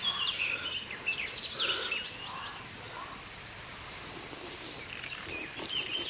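Birds chirping with many short falling notes, and a high, evenly pulsed trill from about four to five seconds in.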